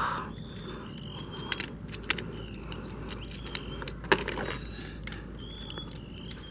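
Plastic joints of a bootleg Transformers Rodimus figure clicking and snapping as it is transformed by hand: scattered sharp clicks, the loudest about four seconds in.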